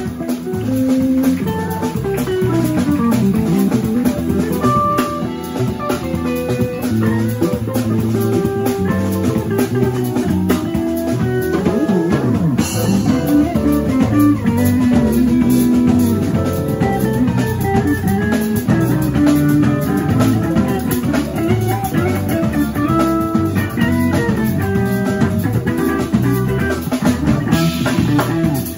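Live band playing: an electric guitar carries a quick melody line of single notes over drum kit and bass guitar.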